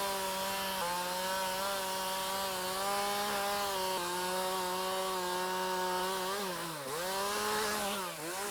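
Chainsaw running at high revs while cutting wood, its pitch steady. Near the end the revs drop sharply and pick up again twice.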